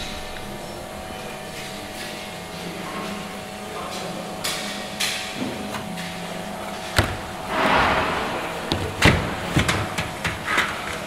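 Irregular hammer blows and knocks, sparse at first and then coming in a quick scatter in the second half, over a steady hum of workshop machinery.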